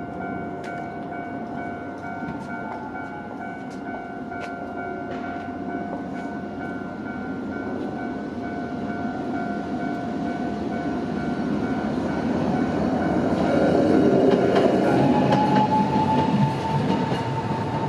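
Level-crossing warning bell ringing in a steady repeating pattern while a Toei Arakawa Line tram runs through the crossing. The tram's running noise builds to its loudest about fourteen seconds in, the bell dies away around then, and a steady higher whine sets in near the end.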